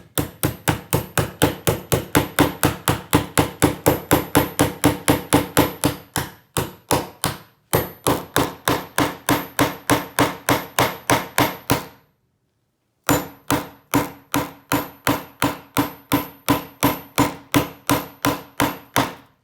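Rapid, evenly spaced sharp strikes on the plastic body of a Federal PL90PE lockout padlock, about four a second, in three runs separated by short pauses about six to eight seconds in and about twelve seconds in. The strikes are the work of breaking into the plastic lock body, which gives way moments later.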